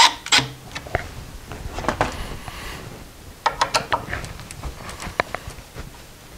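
Wood screws being turned into a cajon's plywood top with a screwdriver and bit by hand. Small irregular clicks and ticks, with a quick cluster about three and a half seconds in.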